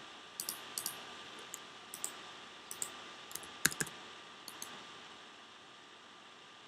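Faint clicking of a computer mouse and keyboard: about ten short, sharp clicks, several in close pairs, with a louder knock a little before four seconds in, stopping about five seconds in.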